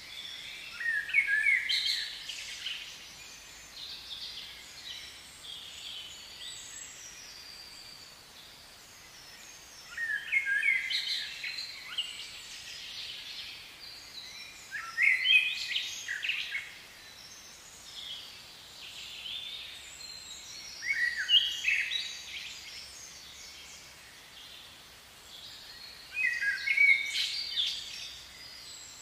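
A songbird singing short, quick phrases of high notes that slide up and down, five times, each a second or two long and about five seconds apart, over a faint steady background hiss.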